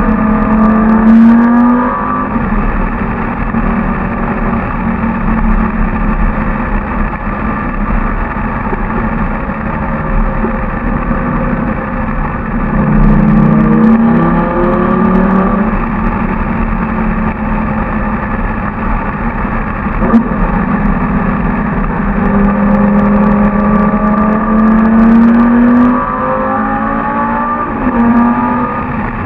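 Lamborghini Gallardo LP 570-4 Superleggera's V10 engine running hard, heard close up, its pitch climbing under acceleration several times and dropping back each time, with steadier cruising between. The sound echoes off the tunnel walls.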